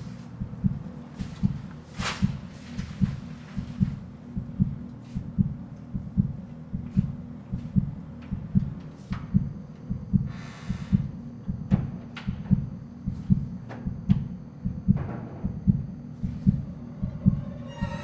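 A steady heartbeat sound effect, beating low and even, with a few faint knocks over it and a brief hiss about ten seconds in.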